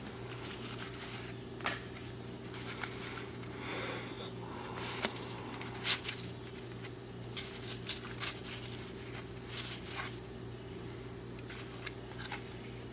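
1990 Donruss baseball cards being handled and flipped through by hand: scattered soft flicks and rustles of card stock, with one sharper click about six seconds in. A steady low hum runs underneath.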